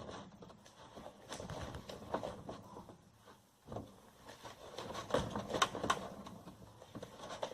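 Sticky, freshly activated slime being stirred in its container: irregular soft clicks and taps, with a brief pause a little past the middle.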